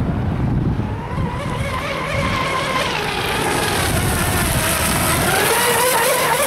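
RC speedboat running fast across the water, its motor a high whine that rises in pitch as the boat comes close near the end, with a growing hiss of spray.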